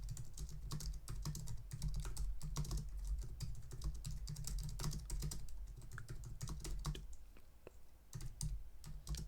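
Typing on a computer keyboard: an irregular run of key clicks with soft low thuds, thinning out briefly about seven seconds in.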